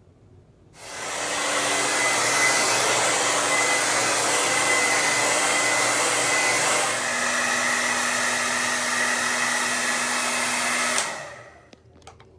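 Hair dryer switched on about a second in and running steadily, blowing warm air at a fogged bathroom mirror to clear the condensation. Its tone shifts slightly about halfway through, and it is switched off near the end.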